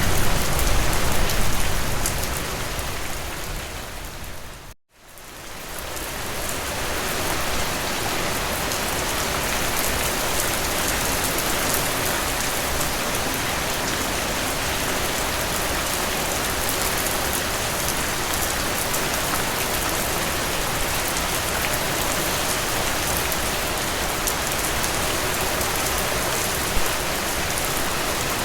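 Steady heavy rain falling on a surface, an even dense hiss. About five seconds in it fades down to a moment of silence and fades back up, as at a loop or edit point, then runs on evenly.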